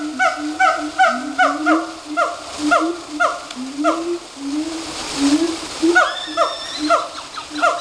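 Gibbons singing: a long run of short hoots, about two a second, each sliding down in pitch. Near six seconds in, higher whoops that rise in pitch join in over them.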